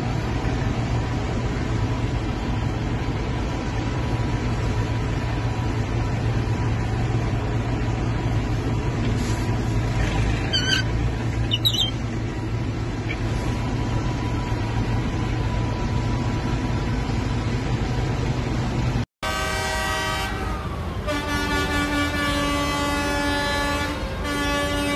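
Tractor engine running steadily, heard from inside the cab, with two brief high wavering sounds about eleven seconds in. After a cut near the end, several vehicle horns sound at once in long, overlapping blasts.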